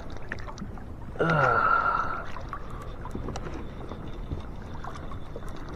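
Steady low water and wind noise around a kayak, with scattered small clicks and knocks. A short falling vocal sound comes about a second in.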